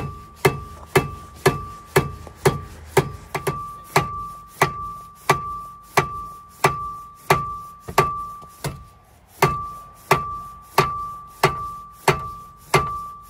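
Steady hammer blows, about one every half second or so, on a seized front brake disc to knock it off the hub of an MG ZR, each strike making the disc ring with a clear metallic tone. The hammering pauses briefly past the middle, then carries on.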